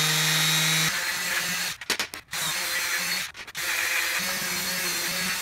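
Corded electric palm sander running: a steady motor hum, then the hiss of its sandpaper pad working along a copper strip. The sound drops out briefly twice.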